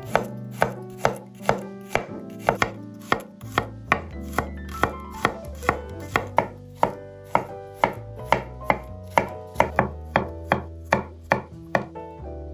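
Chef's knife chopping peeled garlic cloves on a wooden cutting board: sharp, regular knocks of the blade on the board, about two to three a second, getting a little quicker in the second half.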